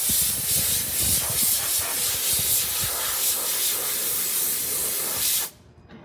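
Compressed-air blow gun on a hose hissing as it blows rust dust off a wire-wheeled steel grill top; the air cuts off suddenly near the end.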